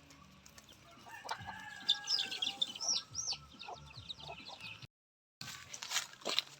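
Farmyard chickens clucking, with higher chirping calls mixed in. The sound cuts out completely for about half a second around five seconds in.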